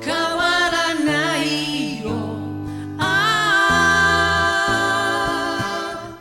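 Male vocal duo singing a soft pop song with band accompaniment, with a long held note from about halfway through, heard from a cassette tape recording of an FM radio broadcast.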